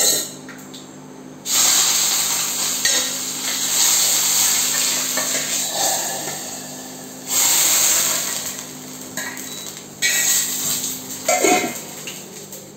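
Hot coconut-oil tempering of mustard seeds and curry leaves sizzling in a small pan and into the rasam: three sudden loud sizzles, about a second and a half, seven and ten seconds in, each fading away, with clinks of metal pans and a spatula.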